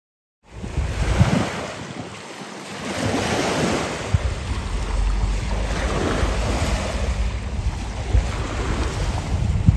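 Wind buffeting the microphone over small waves washing on the shore. The sound cuts in suddenly about half a second in.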